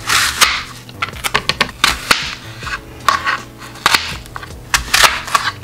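Knife slicing through a raw apple on a plastic cutting board: a run of crisp crunching cuts with sharp knocks, coming in several clusters.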